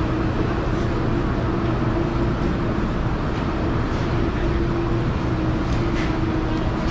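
Steady mechanical hum of an indoor market hall's machinery, such as refrigerated display cases and ventilation: an even drone with a constant low tone. A few faint clicks sound through it.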